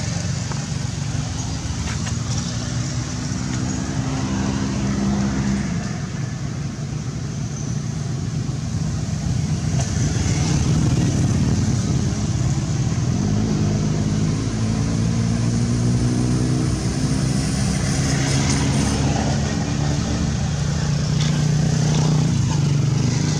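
A motor engine running steadily, its pitch drifting slowly up and down.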